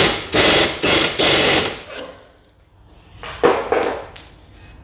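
Impact wrench hammering in several short trigger bursts as it runs a suspension nut tight, then one more brief burst about three seconds in.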